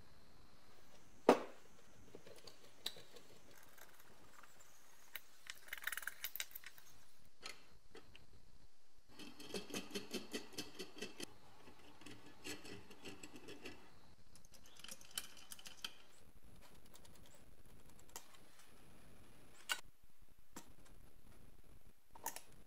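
Small metal parts of a coin balance scale's beam mechanism clicking and rattling as they are handled and fitted together by hand: scattered light clicks, a run of quick even ticks around the middle, and a few sharper single clicks.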